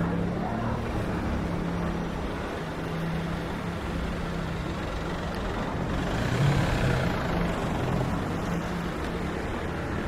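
Street traffic: a large road vehicle's engine runs close by with a steady low hum over general street noise, growing louder briefly about six and a half seconds in.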